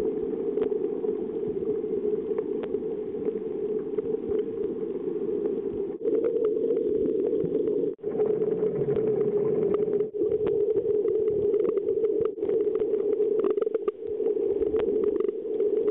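Underwater ambient noise recorded through a waterproof pocket camera's sealed microphone: a steady, muffled low rush of water with faint scattered clicks, dipping briefly a few times.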